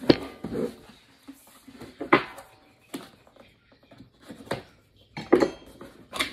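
Cardboard box and plastic wrapping being handled and opened with a small knife: irregular sharp clicks and knocks, about six of them, with softer rustling between.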